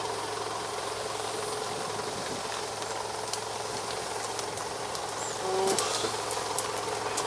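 Off-road SUV's engine running steadily at idle, with scattered light clicks and a brief higher-pitched sound about five and a half seconds in.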